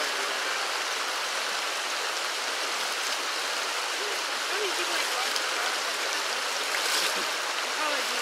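Steady rush of a creek's flowing water.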